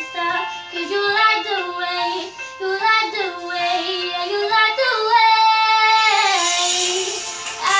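A young girl singing solo, moving between held notes and sliding pitches, then holding one long note over the last couple of seconds.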